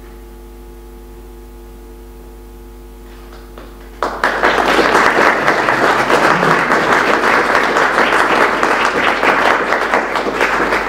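An audience applauding, starting suddenly about four seconds in and tailing off near the end, after a few seconds of a steady low hum.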